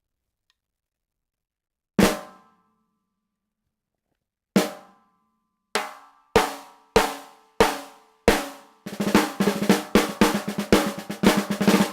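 Snare drum, its lug screws decoupled from the shell, struck alone a few times with each hit ringing out, then struck at a steady pace of about two hits a second, breaking into a fast run of rapid strokes near the end. It rings with a resonant, bright crack.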